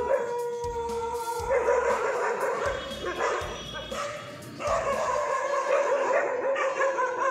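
Dogs barking in bouts, over background music.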